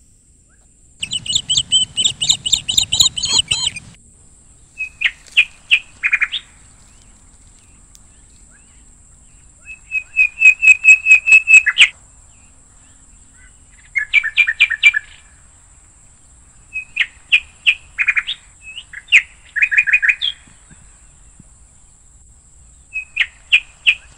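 A songbird singing in about seven bursts of quick, repeated chirping notes, with pauses of one to a few seconds between them.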